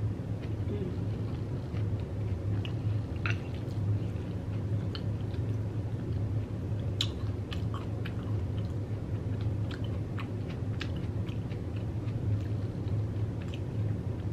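Close-up chewing and mouth sounds from someone eating a spoonful of taco bowl made with Xxtra Flamin' Hot Cheetos, with scattered small clicks and crackles over a steady low hum.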